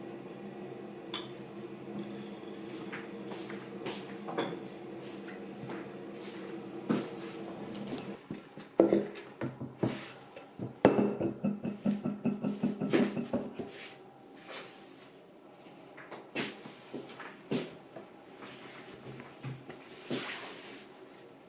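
Kitchen clatter of dishes, utensils and a cupboard door, busiest in the middle, over a steady appliance hum that stops about two-thirds of the way through; scattered light knocks follow.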